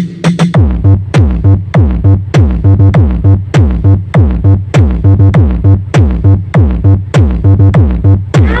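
Electronic dance music with a steady drum-machine beat and synthesizer, played loud.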